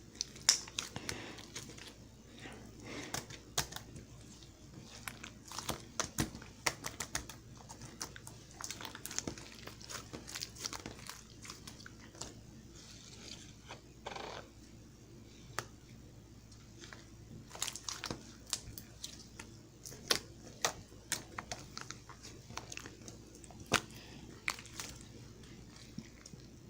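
Slime being squeezed and poked by hand, making irregular sticky clicks and small pops.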